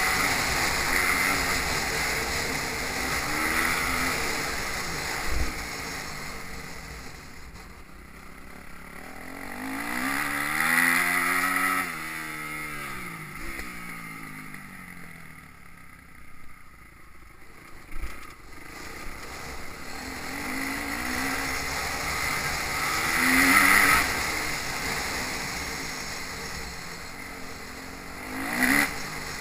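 Motocross bike engines revving and passing, pitch rising and falling as the sound swells and fades several times, with wind buffeting the microphone.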